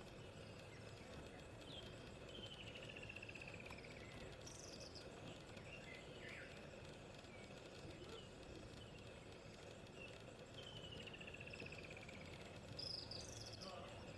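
Faint outdoor bush ambience with birds calling: a descending trill of rapid notes twice, each about two seconds long, and a few short higher chirps over a low steady hiss.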